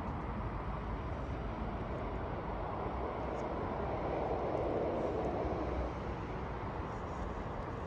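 A vehicle rumbling past, swelling to its loudest about four to six seconds in and then easing off.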